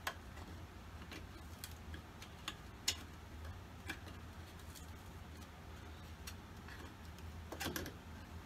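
Faint, irregular clicks and taps as a nailed wooden piece of an old Langstroth hive frame is worked loose by hand. About ten separate clicks, with a quick cluster of three near the end.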